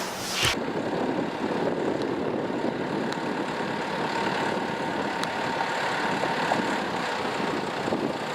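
Steady machine drone with a faint constant whine, starting abruptly about half a second in.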